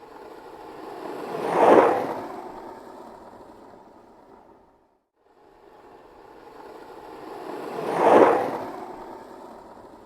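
Skateboard wheels rolling past twice: each pass is a rumbling roll that builds to a loud peak and fades away, with a brief silence between the two identical passes.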